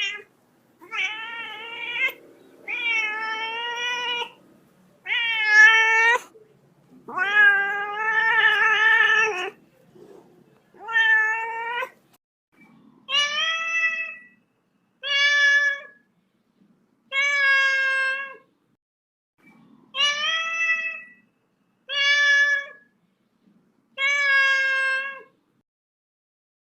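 A kitten meowing again and again: about eleven separate meows, a second or two apart. One longer, drawn-out meow comes about eight seconds in, and the later meows come at a steady pace.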